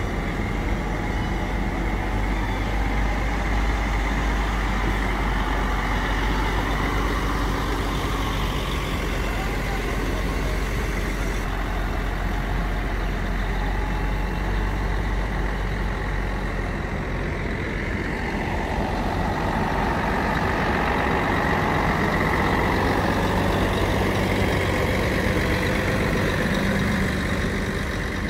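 Heavy diesel lorry engines running as the lorries move slowly past. A tractor unit's low steady rumble is heard first, and about halfway through another lorry's engine takes over as it approaches.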